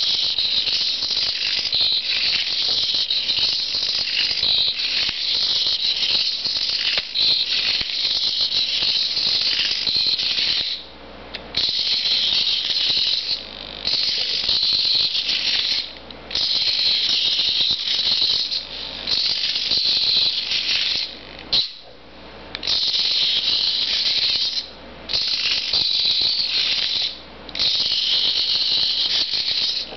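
Hobby servo motors of a small wooden biped robot whirring and buzzing as it walks, with rattling from its wooden frame and feet on a tile floor. The whirring cuts out for under a second several times in the second half as the robot pauses between moves.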